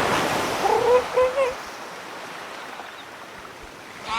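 A rush of splashing surf, then a few short wavering animal calls over the sound of waves.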